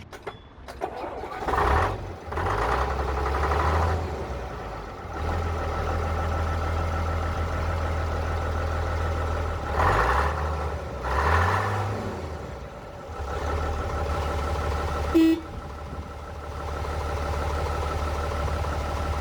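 Large diesel truck engine starting and idling, revved up briefly a few times, with one short sharp clack about three quarters of the way through.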